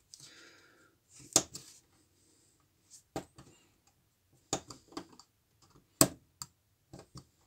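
Scalpel blade cutting and prising a plastic sleeper away from OO-gauge bullhead model railway track, giving a series of sharp clicks and small snaps, the loudest about a second and a half in and again about six seconds in.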